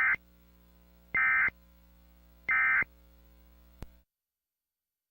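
Three short bursts of Emergency Alert System SAME data tones, high-pitched digital screeches about 1.3 s apart: the end-of-message code that closes an alert. A faint steady hum lies between the bursts, and a click just under four seconds in is followed by sudden silence.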